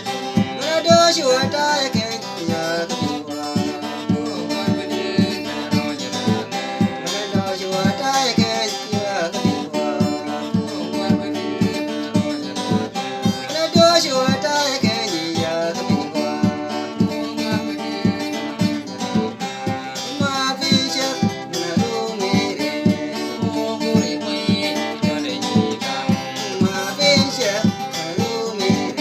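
A song: a man singing in phrases over guitar accompaniment with a steady beat.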